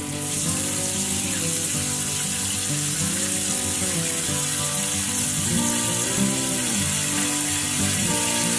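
Kitchen tap water running in a steady stream into a stainless steel bowl of pork ribs in the sink, filling the bowl. The hiss cuts off suddenly at the end.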